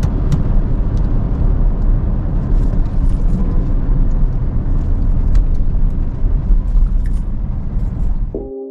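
Steady low engine and road rumble inside the cab of a moving pickup truck, with a few faint clicks. It cuts off suddenly near the end as music starts.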